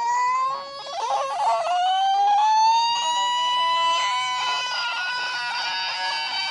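A cartoon farmer's short cry, then, about a second in, a long scream that rises in pitch and is held, heard from a TV speaker.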